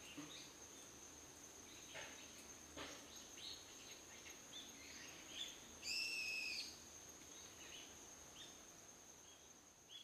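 Faint woodland ambience: a steady high-pitched insect drone under scattered short bird chirps, with one louder, drawn-out bird call about six seconds in. The sound fades out near the end.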